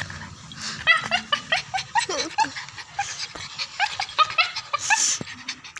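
Dog whimpering: a quick string of short, high whines, several a second, with one longer whine falling in pitch about two seconds in. A brief hiss comes about five seconds in.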